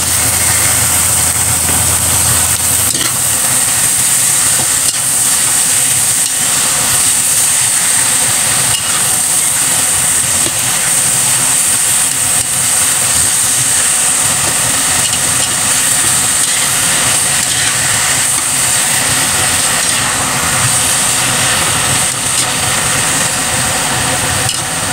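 Raw chicken pieces sizzling in hot oil in a large metal wok as they are stirred, the metal spatula scraping and ticking against the pan. The chicken is being seared on top of browned garlic, onion and ginger.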